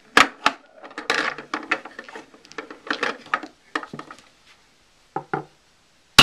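Small mini pool balls clacking and knocking on a tabletop pool table as they are handled: a busy run of clicks, then a pause, two knocks, and one sharp click at the end.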